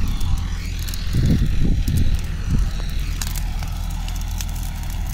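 Mahindra Arjun tractor's diesel engine running steadily, under the crackle and rustle of a pile of dry brush being kicked and set burning.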